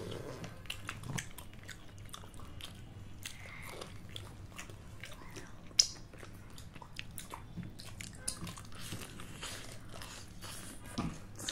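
Chewing and biting into fried chicken: soft chewing with small crunches and mouth clicks, and one sharper click about six seconds in.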